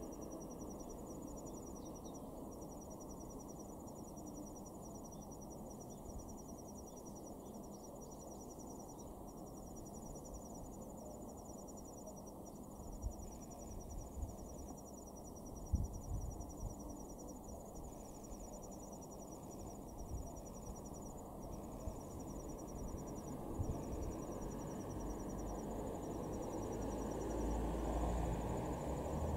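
Insects chirping in a steady high pulsing trill over a low outdoor rumble. The rumble builds over the last few seconds as the C61 20 steam locomotive and its train draw near.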